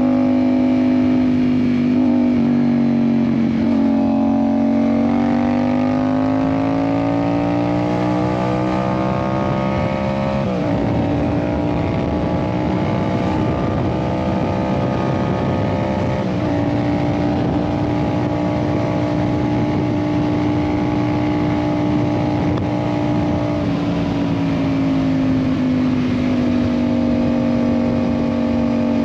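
Yamaha MT-07's parallel-twin engine running through an aftermarket IXIL exhaust while the bike is ridden. The engine note climbs steadily under acceleration and drops abruptly about a third of the way in, then holds a mostly steady pitch with small shifts.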